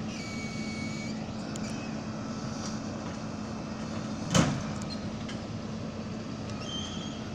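Hi-rail truck's engine idling steadily, with one sharp bang partway through as the crew works on the truck's rail gear.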